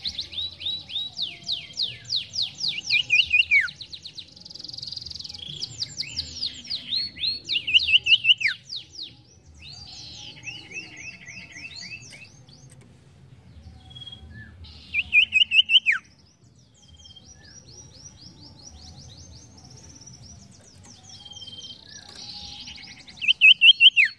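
Sirtu songbird singing energetically in fast trills of high sweeping notes. Several loud trilled phrases are separated by softer scattered notes, and the loudest phrases end in a sharp falling note.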